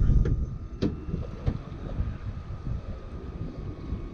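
Wind buffeting the microphone on an open boat deck, a gusty low rumble that eases within the first second, with three sharp knocks in the first second and a half.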